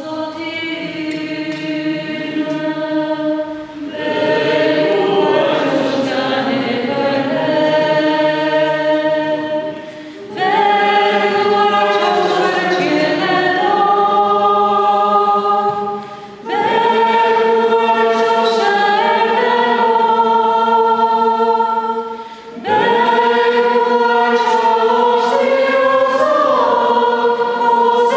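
A group of voices singing a hymn together in long phrases of about six seconds each, with a short breath pause between phrases.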